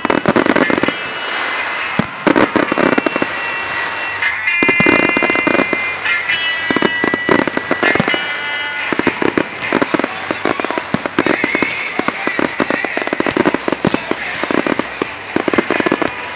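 Fireworks display: aerial shells bursting one after another amid dense crackling. At times steady high tones sound over the bursts.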